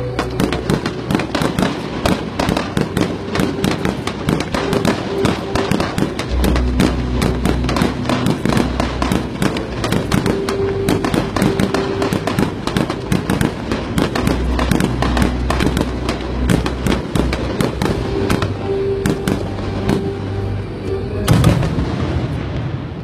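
Fireworks display: a rapid, unbroken run of bangs and crackling, with music playing underneath. One louder burst stands out near the end.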